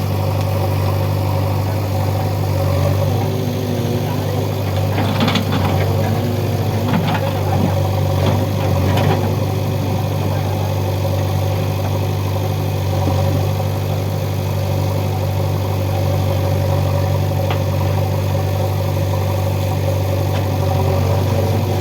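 JCB 3DX backhoe loader's diesel engine running steadily, with a few short knocks about five to nine seconds in and once more later.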